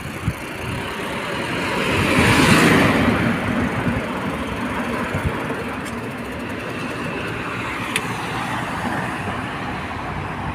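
Street traffic: a car passes close by, its engine and tyre noise swelling and fading about two to three seconds in, then steady traffic noise with cars moving through the junction.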